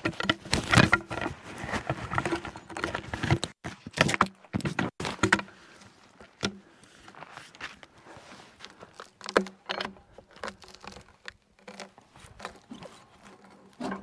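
Cant hook working a heavy log on a sawmill bed: irregular knocks and scrapes of the steel hook and the log against bark and the mill's bunks as it is levered and rolled, busiest in the first half and sparser later.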